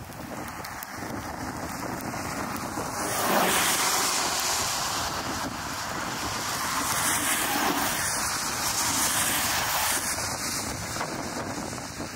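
Storm wind gusting across the microphone: a steady rush that swells sharply about three seconds in and eases off a little near the end.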